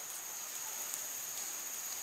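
Insects chirring steadily at a high pitch, a constant outdoor drone with no other clear event.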